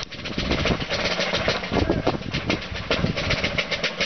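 Wind buffeting the microphone: a steady, fluttering rumble.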